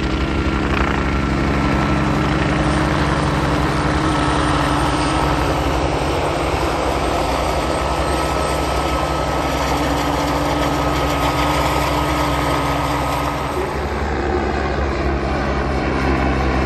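Westland Sioux and Westland Scout helicopters flying low past: steady rotor beat and engine noise with a thin high whine, easing a little about fourteen seconds in.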